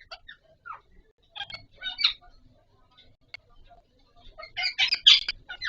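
Indian ringneck parakeets giving short chirps and squawks with a few sharp clicks, then a louder run of harsh calls about four and a half seconds in.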